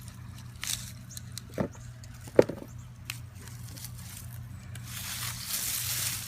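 Hands digging and scraping through garden soil and sweet potato vines: a few scrapes and knocks, the sharpest about two and a half seconds in, then a longer rustling scrape near the end.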